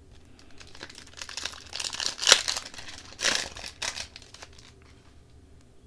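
Hockey card pack wrapper crinkling as it is handled and torn open, with two sharper rips near the middle.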